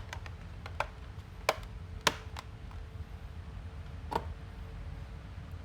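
Plastic access cover of a Toshiba C55 series laptop being pressed back onto the base: a handful of sharp plastic clicks and taps, the loudest two about one and a half and two seconds in, over a low steady hum.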